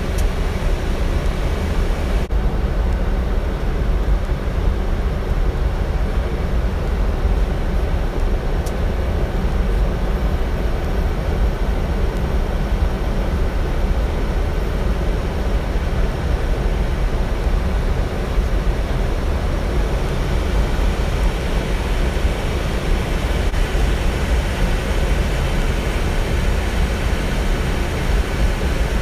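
Steady low rumble of engine and airflow noise inside the flight deck of a Boeing 777 freighter.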